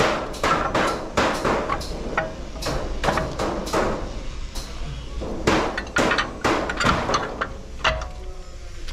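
Hammer blows on steel parts of a truck's wheel brake assembly as the brake shoes and linings are fitted: irregular strikes, about three a second with a short pause a little past the middle, some leaving a short metallic ring.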